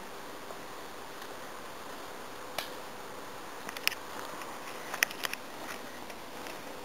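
Steady low background hiss with a few brief, faint taps or clicks, the first about two and a half seconds in and the rest around four and five seconds in.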